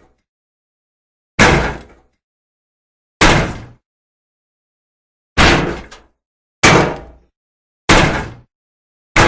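A shield being struck: five separate heavy impacts, each a sharp hit that dies away within about half a second, spaced one to two seconds apart, with another hit starting at the very end.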